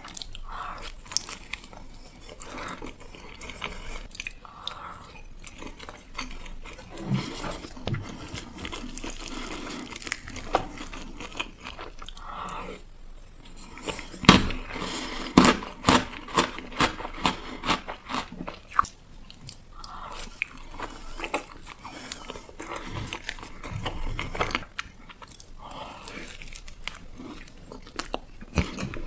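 Close-miked ASMR eating: bites and crunches with chewing, coming in irregular runs, the loudest and densest crunching about halfway through.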